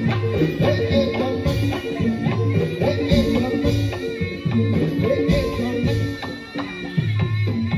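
Live Javanese gamelan music for a jaran kepang dance: drum strokes over ringing notes from struck metal percussion, in a steady driving rhythm.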